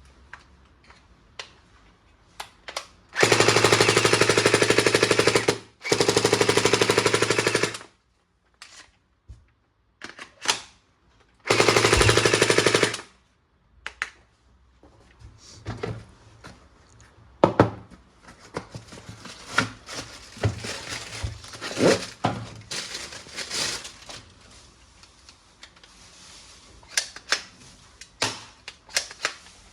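Toy gun firing three bursts of rapid machine-gun sound effect, each a second and a half to two and a half seconds long, followed by scattered plastic clicks and knocks as the toy is handled.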